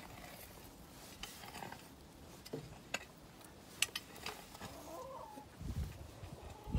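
Chickens clucking in the coop, with a long-handled hoe scraping through the dirt floor and a couple of sharp clicks just past the middle.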